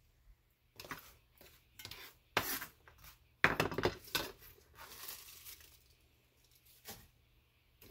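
Chopped cabbage being gathered off a wooden cutting board by hand and with a knife: scattered knocks and scrapes on the board and rustling leaves, with a louder run of clatters about three and a half seconds in.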